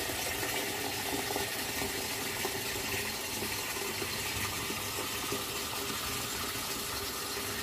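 Water being poured in a steady stream into a pot of soup ingredients, filling it.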